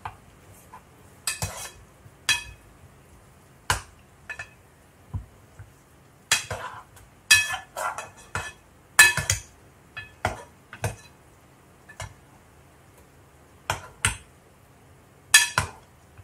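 Metal utensil stirring and poking chicken adobo in a pot, striking the pot in irregular sharp clinks, some ringing briefly.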